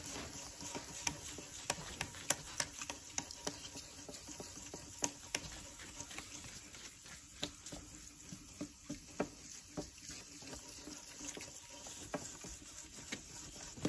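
Fine 2000-grit wet sandpaper rubbed back and forth by hand over a clear plastic lightbar lens, kept wet with Windex: a soft wet scrubbing with many small irregular clicks.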